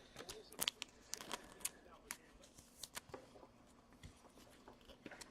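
Hockey trading cards being handled and flicked through by hand: faint, scattered light clicks and rustles of card stock sliding against card stock.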